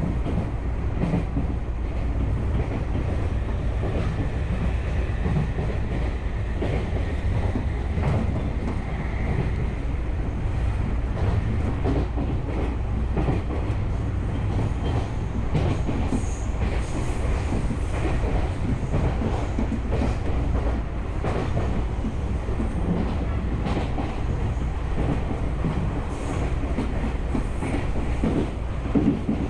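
Tokyu Oimachi Line commuter train running at speed, heard from inside the car: a steady rumble of wheels on rail with irregular clacks over rail joints. A faint high whine comes in for several seconds a few seconds in.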